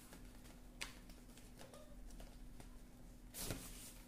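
Faint handling of a cardboard box insert and paper packing: a light tap about a second in and a louder rustle near the end, over a faint steady hum.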